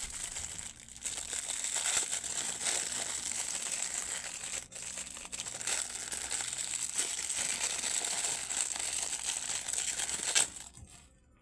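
Packaging being crinkled and crumpled by hand, a continuous crackly rustle that cuts off suddenly about ten and a half seconds in.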